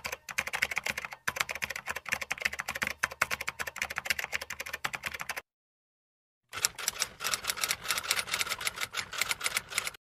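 Rapid typing on a computer keyboard, a dense clatter of keystrokes that stops about five and a half seconds in. After about a second of silence, another run of fast keyboard typing starts.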